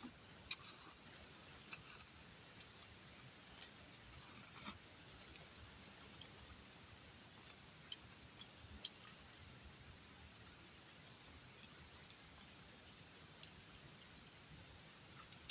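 Crickets chirping: a high, pulsing trill that comes and goes in bursts, with a few faint clicks in the first few seconds.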